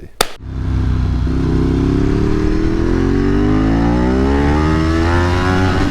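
Motorcycle engine accelerating, its pitch rising smoothly and steadily for about four seconds, after a click at the start.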